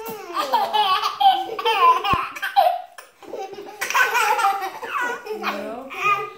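Baby giggling and laughing in repeated short bursts, with a brief pause about three seconds in.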